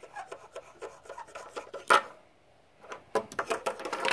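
Scratchy rubbing and scraping in quick runs, with one sharp knock about two seconds in: handling noise of a phone rubbing against the microphone as it is moved.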